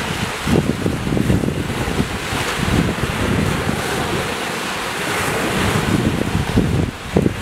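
Small waves washing and lapping at the shoreline, with wind buffeting the microphone in uneven gusts.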